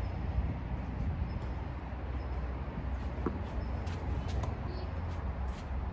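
Outdoor tennis court background: a steady low rumble with a few faint, sharp knocks of tennis balls being struck, about three seconds in and again near the end.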